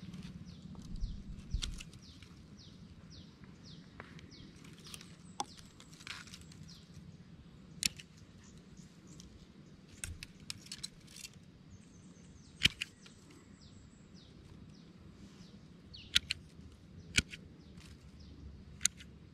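Bypass pruning shears snipping thin twigs, a handful of sharp separate clicks a few seconds apart, most of them in the second half. Small birds chirp repeatedly in the background in the first few seconds.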